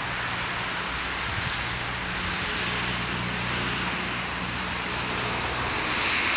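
Parked car idling: a steady low engine hum under an even hiss.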